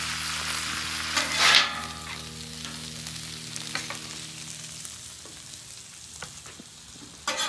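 Shaved corned beef sizzling on a hot flat-top griddle while a metal spatula scrapes and turns it, with a louder scrape about a second and a half in. The sizzle fades toward the end.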